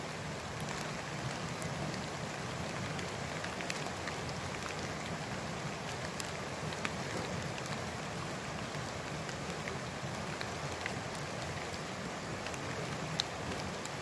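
Light rain falling on forest leaves: a steady hiss with scattered faint ticks of single drops.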